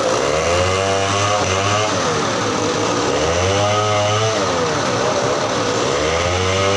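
An engine revving up and dropping back in a repeating cycle, about three times, roughly every three seconds.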